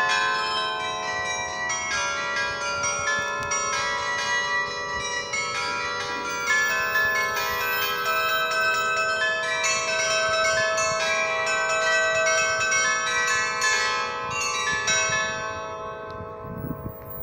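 The Swiss glockenspiel's set of 27 bells chiming the hour, many struck notes overlapping and ringing on in a tune. The bells die away near the end.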